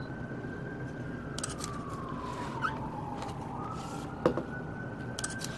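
Emergency-vehicle siren wailing, its pitch sliding slowly up, down and up again. Several quick clicks and one sharp knock a little over four seconds in sound over it.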